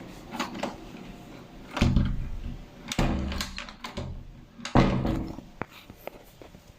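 A door being handled and shut: three heavy thuds, about two, three and five seconds in, among lighter knocks and clicks.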